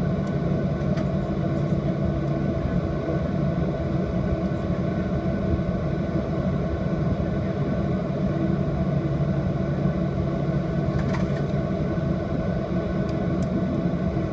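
Steady hum of an airliner's jet engines and cabin air, heard from inside the passenger cabin, with a few faint clicks near the end.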